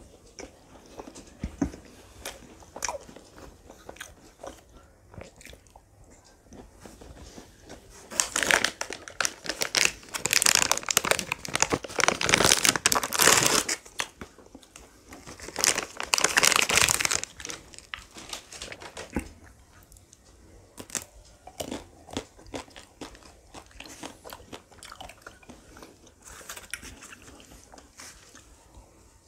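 Close-miked eating of ice cream: biting and chewing with scattered wet clicks, and two louder stretches of dense crackling, the longer from about eight to thirteen seconds in and a shorter one near sixteen seconds.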